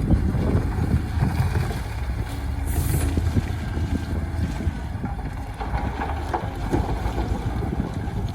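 Heavy diesel construction machinery running with a steady low rumble, and a brief hiss about three seconds in.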